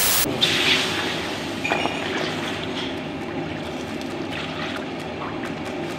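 A loud burst of static cuts off abruptly about a quarter second in. Then the steady rushing of a commercial gas wok burner under a hot wok, with light liquid hiss and a few faint clicks.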